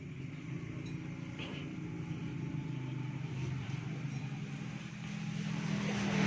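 A motor or engine running steadily with a low hum, getting louder near the end, with a few faint metallic clinks.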